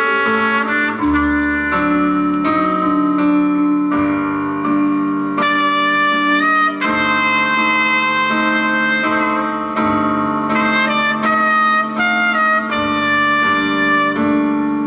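Solo trumpet playing a sustained melody over piano accompaniment.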